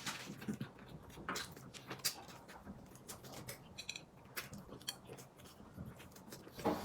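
Close-up eating sounds: chewing and mouth noises with many small, sharp clicks.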